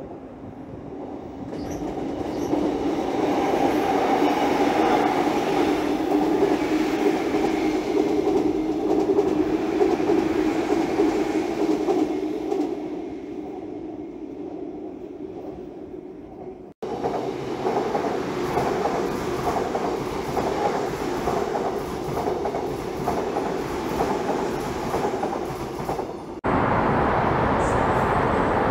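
A Seoul Subway Line 2 electric train passing on a railway bridge. Its rumble builds over the first few seconds, holds loud, then fades. After an abrupt cut, the wheels clack rhythmically over the rail joints, and near the end the sound cuts suddenly to a steady, even noise.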